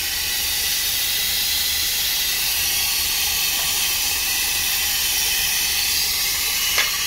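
Steady loud hiss, with a faint metallic click near the end.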